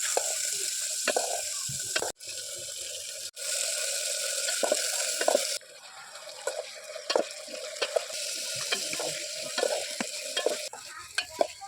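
Food sizzling in hot oil in a small pan, with a utensil stirring and scraping in short clicks. The hiss drops or jumps abruptly a few times.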